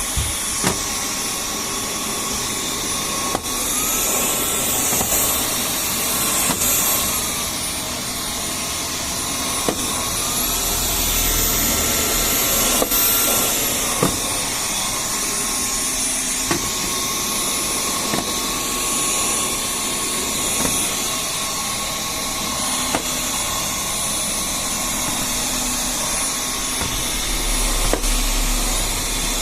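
Dyson V10 cordless stick vacuum running with a steady high motor whine. Twice its pitch steps up for a few seconds as the power rises, then drops back, with a few light clicks along the way.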